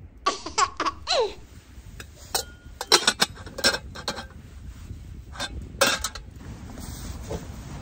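Metal cookware clanking and knocking as pots and a pan are picked up and moved about, several sharp clanks spread through the middle. It opens with a short wordless voice sound that falls in pitch.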